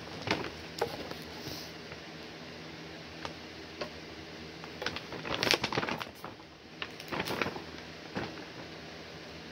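Items being handled and set down: scattered light clicks, taps and rustles of packaging, louder in a flurry about five and a half seconds in and again around seven seconds.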